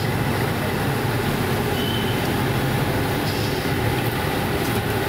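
Puris deep-frying in a kadai of hot oil: a steady sizzle over a constant low rumble.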